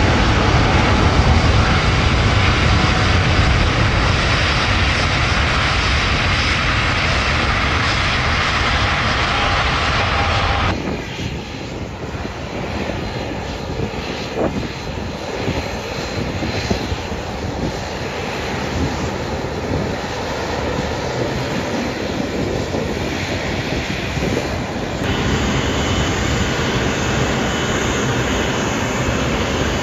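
Boeing 777-300ER's GE90 turbofans at takeoff thrust, a loud steady roar with a whine, as the jet rolls past close by. About ten seconds in the sound cuts abruptly to a quieter, distant jet rumble as it lifts off. About 25 s in it cuts again to the louder jet engine noise of an Airbus A330-300 on the runway.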